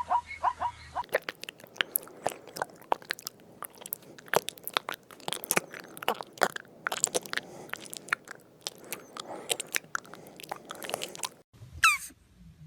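Crunching and chewing: many sharp crunches in quick, irregular succession, as of an animal eating crunchy food. Yapping barks end about a second in, and a short high squeak falls in pitch near the end.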